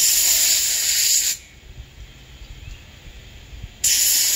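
Aerosol spray can hissing in two bursts, each about a second and a half long: one right at the start and one near the end.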